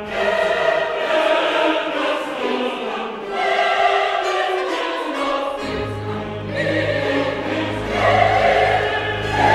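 Background music: choral singing with orchestra in long held notes. A low bass note comes in a little past halfway.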